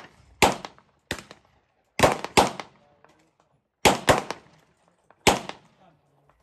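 A string of about seven gunshots at uneven spacing, some in quick pairs, each trailing off in a brief echo. It is a shooter's timed run of fire at numbered targets.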